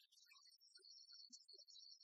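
Near silence, with only faint scattered high-pitched chirps and ticks.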